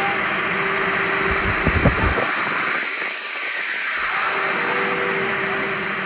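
Steady hiss of aerosol snow-spray cans being sprayed over a crowd, with a few low thumps about a second and a half in.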